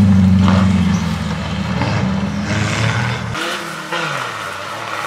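Modified off-road 4x4 engine running loud and steady under load as it climbs. About three and a half seconds in the sound cuts abruptly to a quieter engine whose pitch falls.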